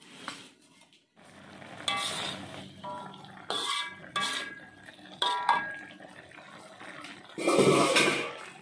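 Metal spatula stirring a pan of curry in a metal wok, clanking against the pan several times with a short metallic ring, and a louder, longer scrape near the end.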